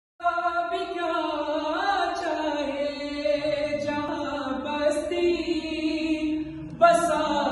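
A man's voice chanting a noha, a Shia lament, without instruments, in long held notes that slide in pitch. A new, louder phrase starts near the end.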